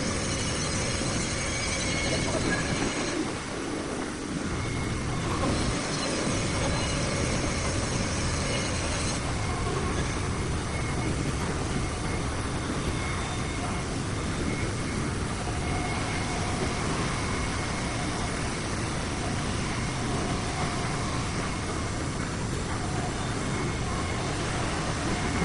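Steady industrial machinery noise with a few faint, high whining tones held through it.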